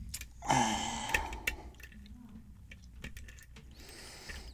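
Small sharp clicks of a lock pick working inside a Yale-style pin-tumbler lock, with a louder noise lasting under a second about half a second in.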